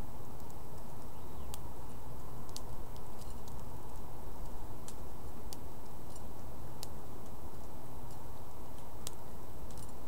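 Sharp, irregular clicks of a small bird's beak pecking and cracking seeds in a dish, over a steady low outdoor rumble.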